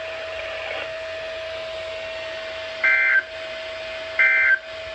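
NOAA Weather Radio SAME end-of-message data bursts: two short, loud, two-tone digital squawks about a second apart, the first about three seconds in and the second near the end, over a steady tone. These bursts mark the end of the weekly test broadcast.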